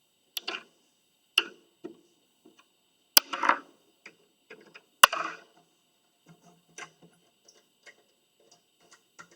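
Irregular clicks and knocks as the black spin-off fasteners on a boat's engine compartment hatch are unscrewed and the hatch cover is handled, with two sharper knocks about three and five seconds in.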